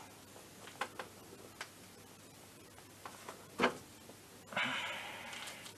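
Light scattered clicks and small knocks of a scooter's plastic air box and carburettor being handled and positioned during assembly, one knock louder about three and a half seconds in, followed by a short scraping rustle that fades.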